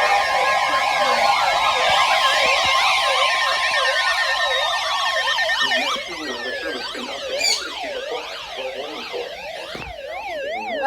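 Several electronic siren-like alert tones overlap, warbling rapidly up and down, while slower tones glide steadily down beneath them. The whole sound gets quieter about six seconds in.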